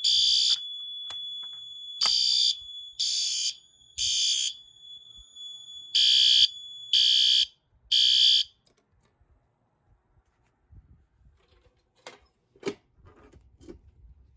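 System Sensor SpectrAlert Advance P2R fire alarm horn sounding the temporal-3 evacuation pattern: short high-pitched blasts in groups of three with a longer pause between groups, cutting off about eight and a half seconds in. A few faint clicks and knocks follow near the end.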